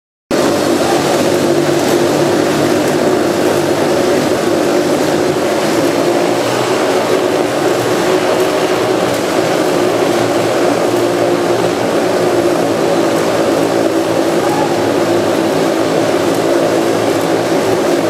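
Motorcycles riding round inside a steel mesh globe of death, their engines running loud and steady.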